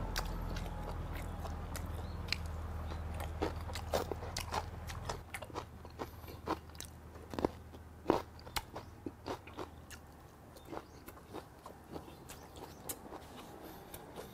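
A person chewing food close to the microphone: irregular, crunchy bites and wet mouth clicks. A low background rumble dies away about five seconds in.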